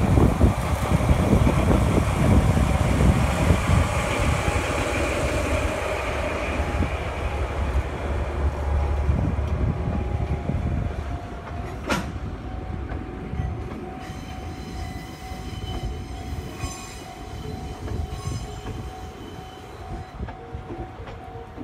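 A DE10 diesel locomotive's engine rumbles past, loudest at first and fading. A line of towed, unpowered electric railcars follows, rolling by with wheel noise, a faint steady squeal and a sharp click about halfway through.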